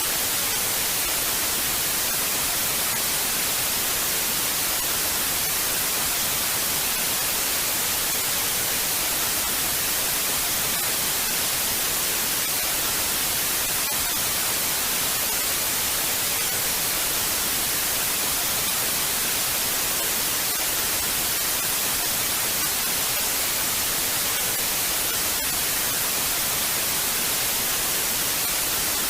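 Television static: a steady, even hiss of white noise that is brightest in the highs and does not change.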